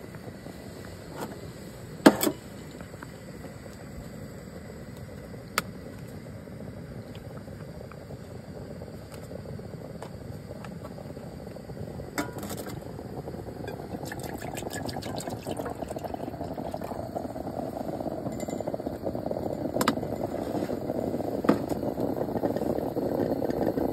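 Aluminium stovetop moka pot brewing on a portable butane camping stove: a steady hiss and bubbling that grows louder from about halfway as the water boils up through the coffee. A few sharp knocks and clicks, the loudest about two seconds in.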